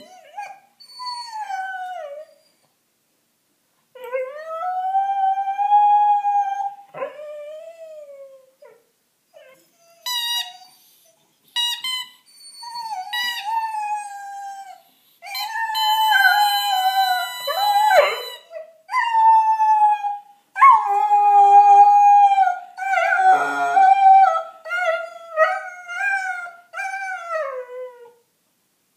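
A five-month-old Dalmatian puppy howling: a series of long, wavering howls that rise and fall in pitch, separated by short pauses.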